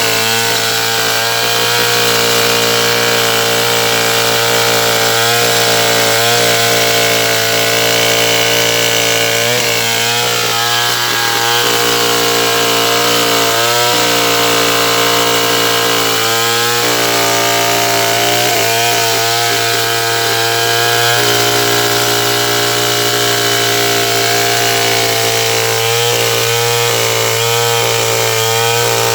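A Stihl 070 two-stroke chainsaw running at high revs while cutting sengon wood. Its engine pitch dips briefly several times as the cut loads it, then recovers.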